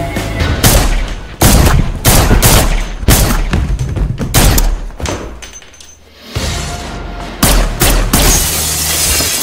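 Film gunfight: a rapid, uneven string of gunshots echoing in a house, with a short lull about five seconds in, then a rush of noise and more shots.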